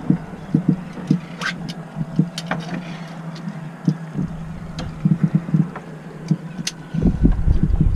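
Red drum (redfish) drumming: a run of short, low, irregular thumps over a steady low hum, with a few sharp clicks.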